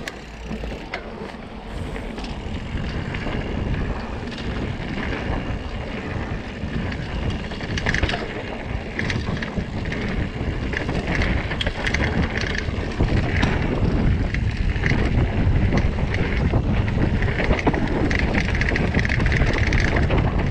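Mountain bike descending a dirt trail: tyres rolling over dirt and loose rock with the bike rattling, under heavy wind rush on the body-mounted camera's microphone. It grows louder as the speed builds.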